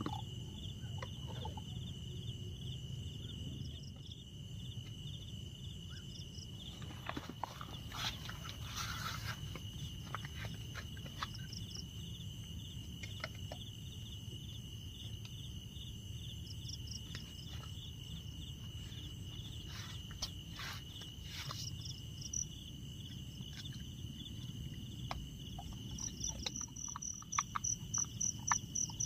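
Night insects in tropical jungle: crickets trilling in a steady high drone, with a rapidly pulsing high chirp joining near the end. Occasional faint clicks and knocks sound close by.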